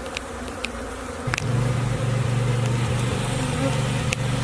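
Honeybees buzzing in a steady low drone around the opened hive, coming in suddenly about a second in, with a few sharp clicks before it.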